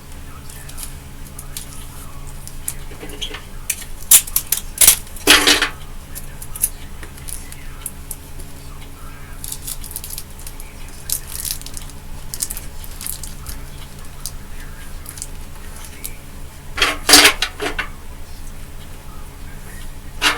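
Small metal objects clinking and rattling in two bursts, about four seconds in and again about seventeen seconds in, with scattered light ticks between, over a steady low hum.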